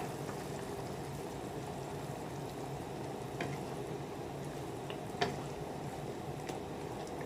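Pork adobo simmering in a pot, a steady bubbling, with a couple of light clicks; the sharper one comes about five seconds in.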